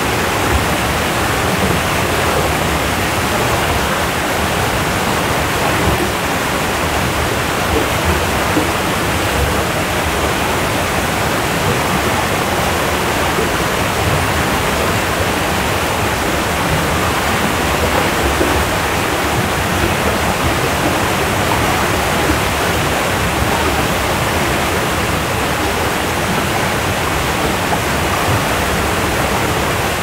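Waterfall: falling water making a steady, even rush that does not change.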